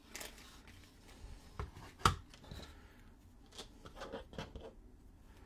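Faint rustling and light ticks of hands wrapping Kevlar kite string around a model rocket's body tube, with one sharper click about two seconds in.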